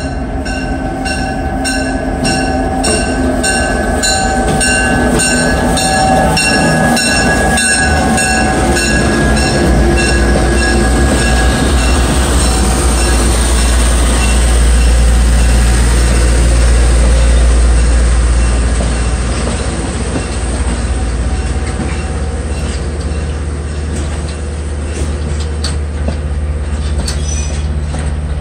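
Diesel locomotive rolling slowly past with its engine running, then heavy passenger cars rolling by, steel wheels squealing on curved track. The low rumble of the passing cars is loudest midway and eases near the end.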